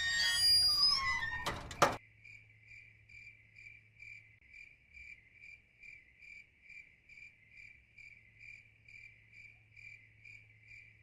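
Music cuts off with a sharp click about two seconds in, then a cricket chirps steadily, about two chirps a second, over a faint low hum.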